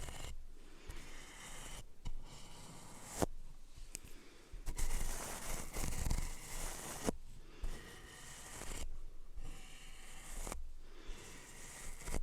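A small brush's bristles stroked over a microphone close up: a run of scratchy swishing strokes, each a second or two long with short pauses between, and a couple of sharp clicks, about three and seven seconds in.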